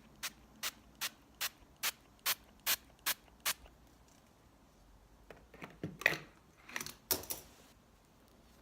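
Close-up ASMR handling of makeup items: a run of about ten evenly spaced sharp clicks, roughly two and a half a second, that stops about three and a half seconds in, then a few irregular clicks and short rustles a couple of seconds later.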